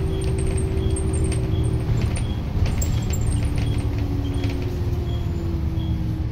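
Double-decker bus engine and drivetrain running as the bus drives along, heard from the upper deck, with a whine slowly falling in pitch. Loose interior fittings rattle, and a short high tick repeats about every 0.7 s.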